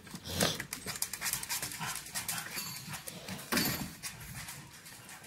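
A dog panting and breathing noisily, with irregular louder breaths.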